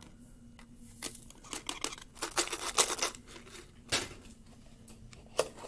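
Plastic crinkling and scraping as baking soda is spooned with a plastic spoon from a zip-top bag into a plastic water bottle. There is a dense run of sharp rustles in the middle and a few separate clicks.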